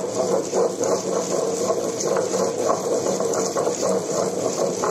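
Table-top wet grinder running steadily, its stone rollers turning in the steel drum and churning thick rice-and-coconut batter, with a constant motor hum. The batter is near the end of grinding, being worked until smooth.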